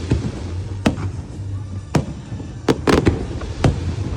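Fireworks going off: about six sharp bangs at irregular intervals, three in quick succession near the three-second mark, over a steady low rumble.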